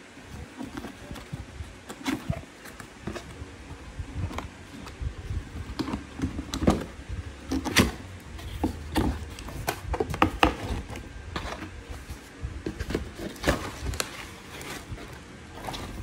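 Hands opening a cardboard box and handling its flaps and packed contents: irregular cardboard scrapes, rustles and knocks.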